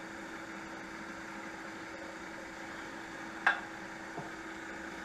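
Wood lathe running with a steady motor hum as it spins a pen blank on its mandrel. One brief sharp sound comes about three and a half seconds in.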